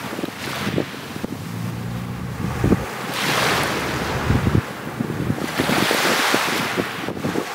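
Small waves breaking and washing up a sand beach, swelling twice, with wind buffeting the microphone.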